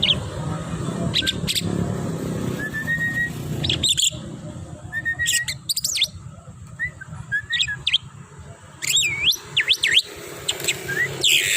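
Javan myna calling: a series of short whistled notes, rising slides and sharp chirps. Quick up-and-down swooping whistles come about nine seconds in.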